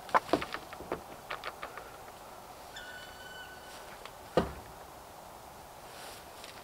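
Pitchfork knocking and clattering against the metal load bed of a Żuk pickup while compost is forked in: a quick run of sharp knocks at the start, then one loud knock about four and a half seconds in.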